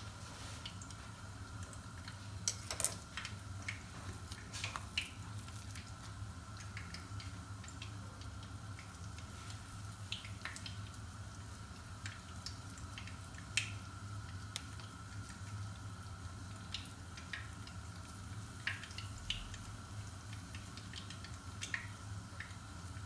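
Scattered small pops and crackles of potato-and-whiting fritters frying in hot oil, over a steady low hum.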